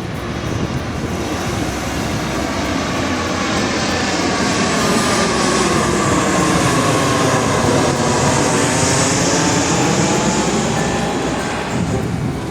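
Loud, steady noise of a vehicle in motion, swelling over the first few seconds.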